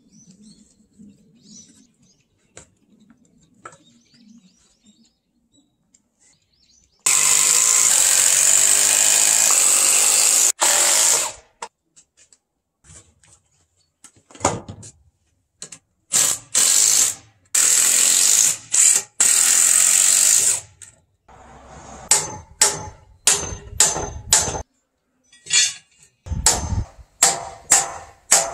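A cordless drill runs in bursts on wood: one long run of about four seconds, then several shorter ones. Near the end come a series of sharp hammer blows on the wooden brace pieces.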